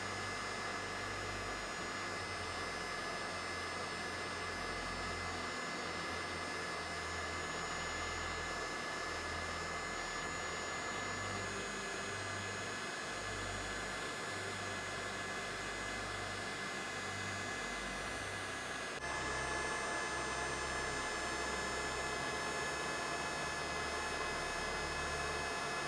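Heat gun running steadily: a whirring fan and rush of hot air with a faint high whine, warming the screen adhesive. The sound steps up a little, suddenly, about three-quarters of the way through.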